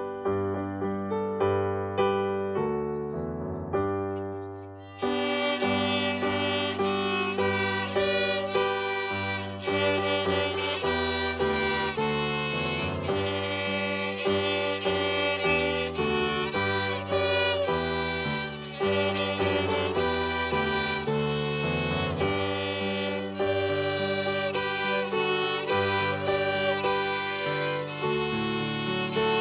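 Violins and other bowed strings playing a melody with keyboard accompaniment. The first few seconds are keyboard alone, and the strings come in fuller about five seconds in.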